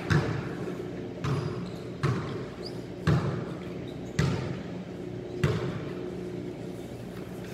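Basketballs bouncing on a hard court floor, about six separate bounces at uneven intervals of roughly a second, each echoing in a large gym hall, over a steady low hum.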